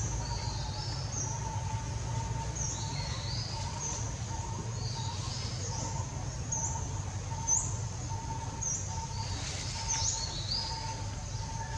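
Birds chirping in trees: short high notes repeating every second or so, with one louder chirp about seven and a half seconds in, over a steady low rumble.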